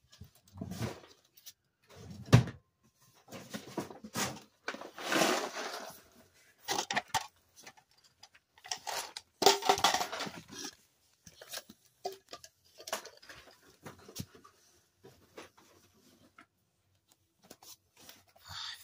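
Red plastic party cups tapping and clicking as they are handled and set one by one on top of a cup pyramid, with rustling handling noise between the taps. The sounds come in scattered short bursts with quiet gaps, including a longer rustle about five seconds in.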